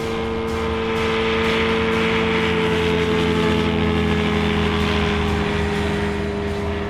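Three-cylinder car engine running hard at a steady high pitch under load, with a loud, harsh exhaust note.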